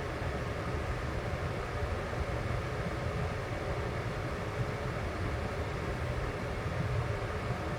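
Electric desk fan running steadily: an even rush of air with a low rumble, no change in speed.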